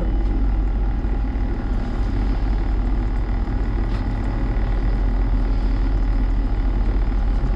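Steady low engine or machinery drone running evenly throughout, with a faint click about four seconds in.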